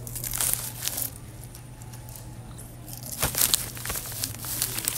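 A plastic biscuit packet crinkling as it is handled. The crackles come in two clusters, the louder one about three seconds in.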